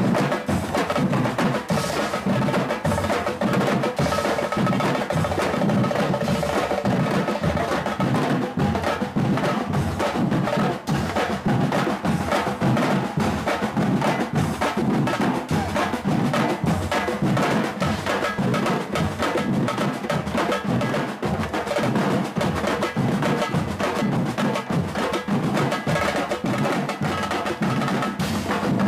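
Percussion ensemble of drums playing a fast, dense rhythm without a break, the strokes following one another several times a second.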